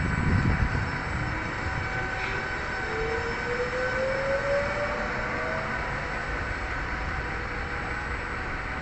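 Trenitalia Pop (ETR 104) electric multiple unit pulling away from the platform, its traction motors giving a whine that rises steadily in pitch as the train gathers speed, over the general running noise.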